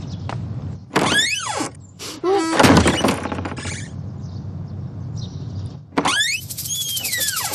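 Door creaking open with two high, downward-gliding squeals and a heavy thud between them.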